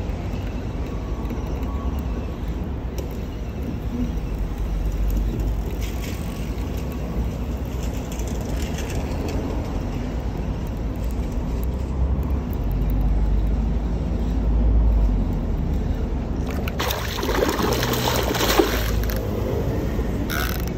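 A steady low rumble, then near the end about three seconds of splashing as a hooked fish thrashes at the water's surface.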